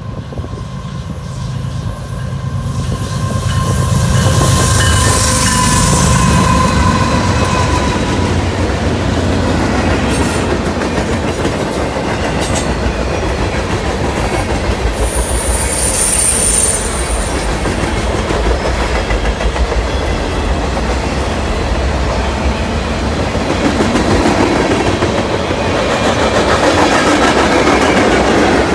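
CSX Q404 freight train passing close by: a low rumble from the diesel locomotives in the first several seconds, then a long string of freight cars clattering in a steady rhythm over the rail joints, with a brief high wheel squeal about halfway through.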